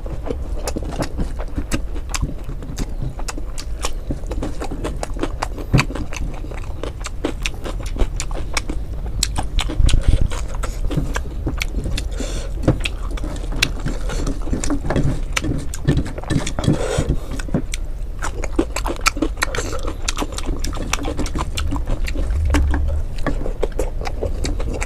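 Close-miked chewing of a handful of rice and fried fish: a dense run of wet, clicky mouth and lip sounds over a steady low hum.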